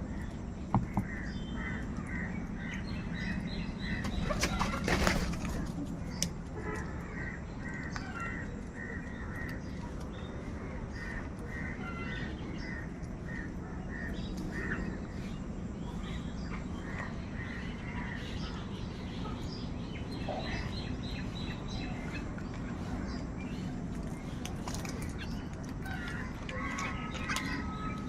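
Crows calling in repeated strings of short caws, with other bird calls, over a steady low background hum. A louder noisy burst comes about five seconds in.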